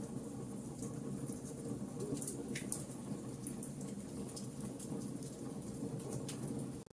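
Wood fire burning in a fireplace: many small crackles and pops over a steady low rumble of the flames, with one short falling hiss a little after two seconds in.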